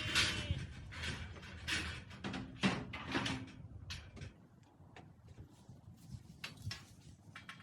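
Sheep being loaded into a livestock trailer: a run of irregular metallic clattering and knocks, busiest over the first four seconds and then sparser and quieter.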